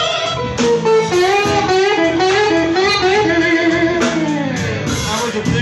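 Live blues band playing, electric guitar to the fore, its melody bending up and down over a steady accompaniment.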